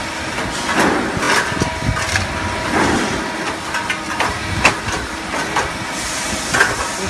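Irregular metal clanks and knocks as aluminium ladder rails and steel hinge plates are set into and lifted out of a folding-ladder hinge inserting machine's jig, over a steady machine hum.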